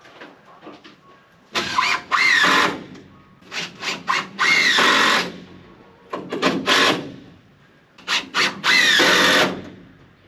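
Power drill driving screws into wood in four runs, each begun with a few short trigger pulses and then held for a second or so, the motor's pitch sagging as the screw bites.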